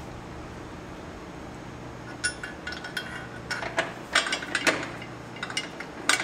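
Light metallic clinks and clicks of a fender bolt and hand tool being fitted against a Harley-Davidson's chrome fender support, starting about two seconds in as scattered taps, with a sharper clink near the end.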